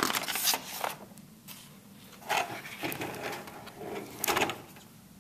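A hardcover picture book being handled and closed: a series of paper rustles and soft knocks as the last page is turned and the cover swings shut.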